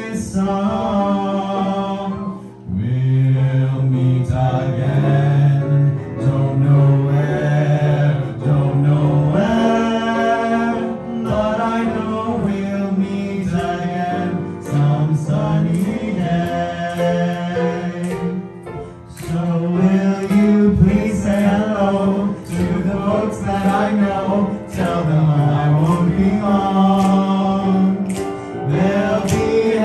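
Two singers singing into microphones through a small PA, with long held notes. No instruments are heard playing.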